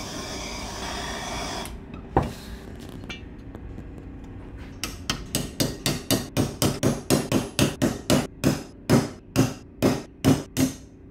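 Hammer taps on a socket used as a driver, pressing a new bearing into an aluminium crankcase half in a rapid run of about four strikes a second over the last six seconds. A brief steady hiss from a propane torch heating the case comes first.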